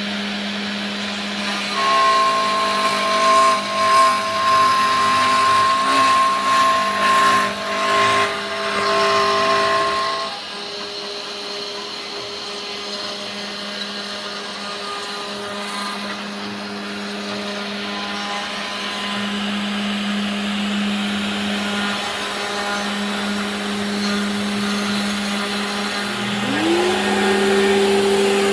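Genmitsu 3020 PRO MAX CNC router milling wood: the spindle runs with a steady hum. From about two to ten seconds in, a higher whine joins it and the sound is louder and uneven as the bit cuts. It then runs quieter, and near the end a tone rises quickly in pitch.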